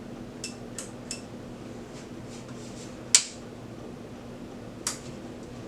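Several short, sharp clicks, the loudest about three seconds in, over a steady low hum.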